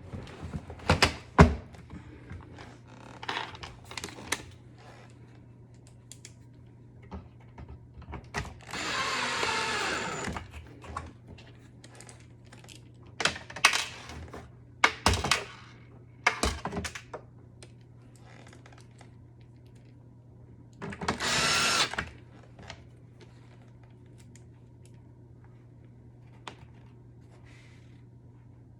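A cordless drill-driver runs in two short spells, about nine seconds in and again about twenty-one seconds in, with its pitch shifting as it turns screws. Sharp clicks and knocks of parts being handled fall between the runs.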